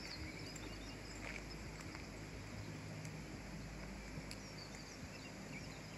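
Faint, steady outdoor ambience with a few faint, high chirps.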